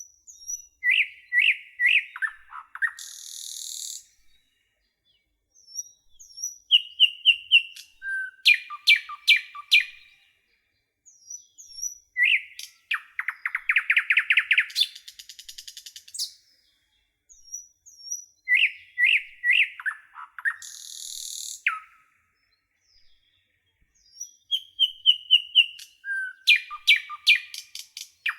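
Songbird singing phrases of quick chirps, whistled notes and fast trills. The same song pattern repeats about every six seconds.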